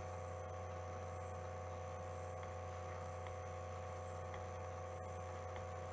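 Steady low electrical hum with a few faint constant higher tones and light hiss: the background hum of the recording setup.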